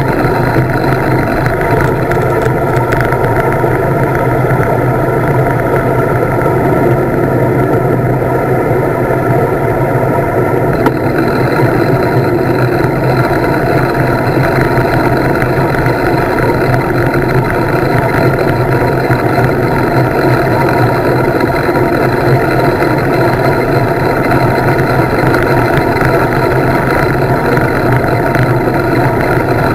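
Wind rushing over a handlebar-mounted camera's microphone as a road bike descends at speed: a loud, steady roar.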